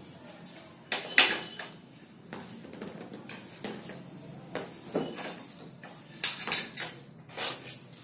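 A series of irregular knocks and clicks, some single and some in quick clusters near the end.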